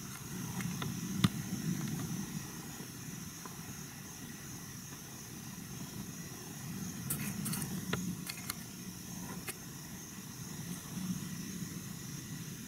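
Quiet woodland ambience: a low rumble that swells and fades, under a steady high hiss, with a few faint clicks about a second in and again in the second half.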